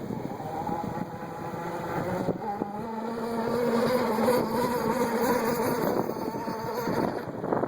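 Petrol engine of an RC racing catamaran, a 5 hp Gizmo Motors Rev Unlimited, running at speed across the water. Its tone is fairly steady and grows louder towards the middle as the boat passes, then fades near the end.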